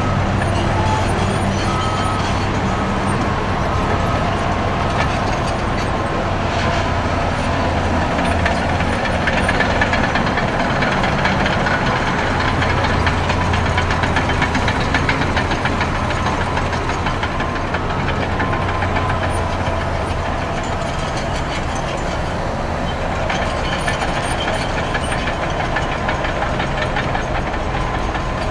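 Caterpillar D6R XL crawler dozer's six-cylinder diesel running steadily as the machine works, with clattering from its steel tracks. Heavy motorway traffic, trucks and buses, passes behind it.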